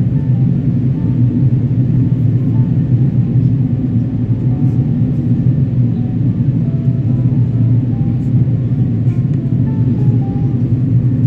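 Steady low drone of an Airbus A330-300's Rolls-Royce Trent 700 engines and rushing airflow, heard inside the cabin in flight.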